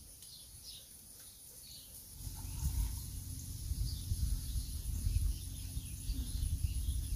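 Steady high insect drone with a few short bird chirps. About two seconds in, a low, uneven rumble sets in and stays.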